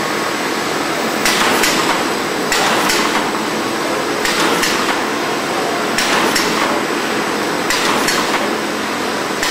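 Abrasive pad sheeting machine cutting in its automatic cycle: five short cutting strokes, each with a sharp click, about every second and a half, over a steady machine hum.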